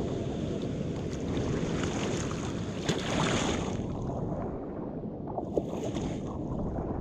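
Wind buffeting the microphone over water lapping against a kayak, with brief splashes about three seconds in and again near six seconds.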